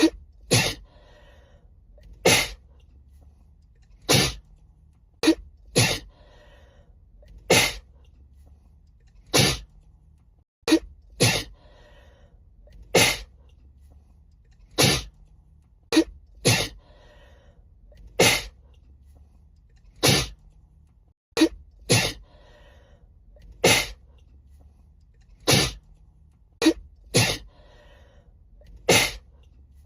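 A woman sneezing again and again in a sneezing fit, about one sneeze every one to two seconds and sometimes two in quick succession, each led in by a short breathy intake. A low steady hum runs underneath.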